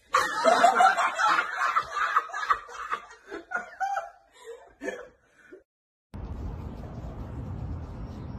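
Several people laughing hard, a burst of chuckling and giggling that thins out into scattered laughs over about five seconds. After a short gap, a steady low background rumble begins.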